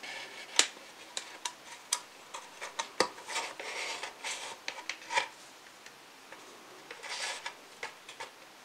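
Hard objects being handled: irregular sharp clicks, taps and short scrapes, with a lull about six seconds in.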